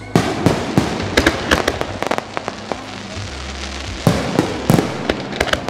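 Aerial fireworks shells bursting: an irregular string of sharp bangs and crackles, thinning out in the middle and picking up again about four seconds in.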